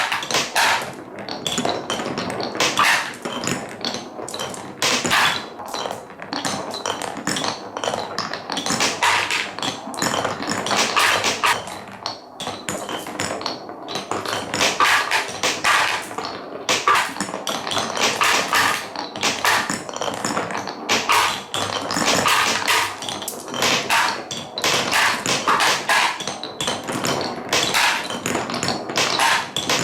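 Marbles rolling and dropping through a wooden Cuboro marble run: a dense, irregular stream of clicks, taps and knocks of glass on wood.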